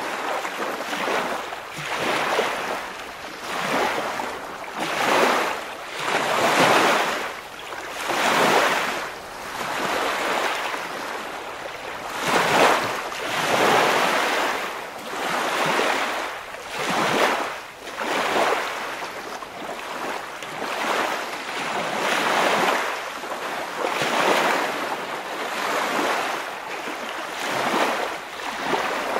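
Waves washing onto the shore, a noisy wash that surges and falls back every second or two.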